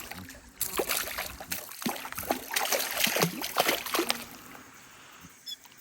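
Water splashing and trickling with irregular sharp knocks and clicks, the sound of a freshly caught piranha being handled at a canoe; it quiets down after about four seconds.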